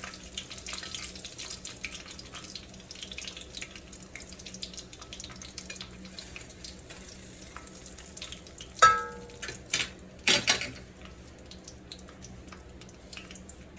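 Hot oil sizzling with a fine, steady crackle as just-fried chicken nuggets drain. About nine seconds in there is a ringing metal clink, then a few knocks a second or so later.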